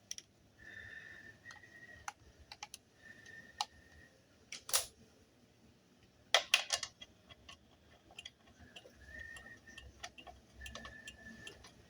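Scattered light clicks and knocks of small hard parts being handled, with a few short faint squeaks; no engine is running.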